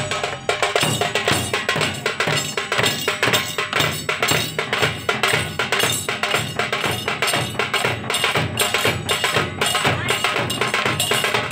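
Several large double-headed dhol drums beaten with sticks together in a fast, steady rhythm of dense, sharp strikes.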